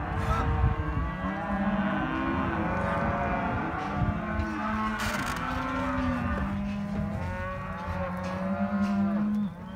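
A herd of calves bawling, many long calls overlapping at once.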